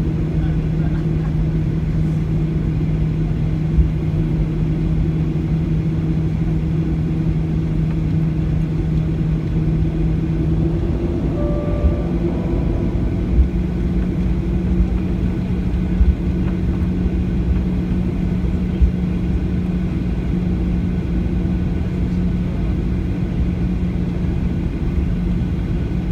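Boeing 737 cabin during taxi: steady rumble and hum of the jet engines at low power, the hum stepping up slightly in pitch about eleven seconds in. A few light thumps come through the cabin along the way.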